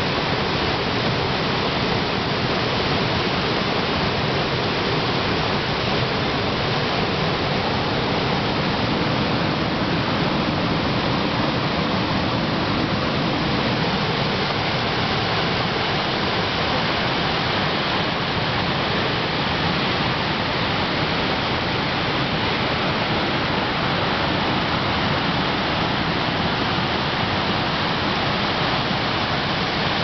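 Waterfall cascading over rocks into a pool: a steady, loud rush of white water that does not change.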